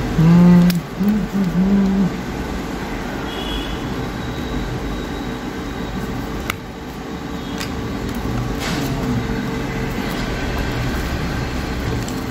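A man's wordless, drawn-out 'hmm' for about the first two seconds. Then a steady low hum of workshop background noise, with a few faint clicks.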